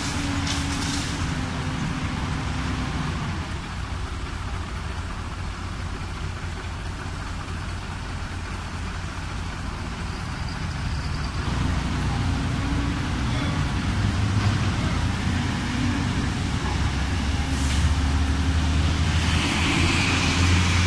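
Diesel engines of a Caterpillar tracked excavator and a ten-wheel dump truck running steadily. The excavator's engine works harder and louder in the second half as it swings and digs. A hiss comes near the end.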